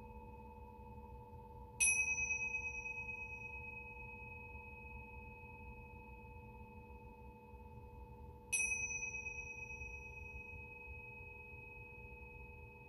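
A small high-pitched chime struck twice, about seven seconds apart. Each strike rings out with a slowly fading, slightly wavering tone over a steady low hum of singing bowls.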